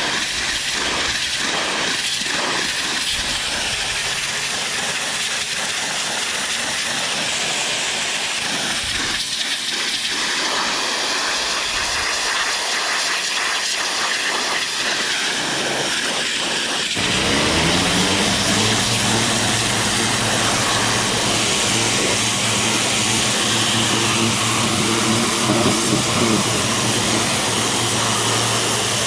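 Greenworks 2300 PSI electric pressure washer with its turbo nozzle spraying, a steady hiss. About two-thirds of the way through, the electric motor and pump start up, rising in pitch and settling into a steady hum under the spray.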